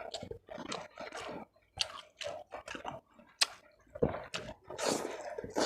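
A person chewing food with wet mouth sounds and irregular sharp clicks of the lips and teeth.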